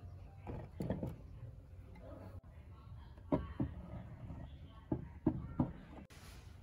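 Light knocks and clicks of an electric planer's motor stator and wires being handled against its aluminium housing: a pair about a second in, two more a little after three seconds, and three close together near the end.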